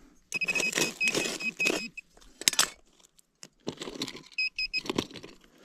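A small pocket shovel scraping and clinking in stony desert soil while the dig is worked. Over it, a metal detector's high beep pulses rapidly through the first two seconds and again briefly near the end, signalling metal in the hole.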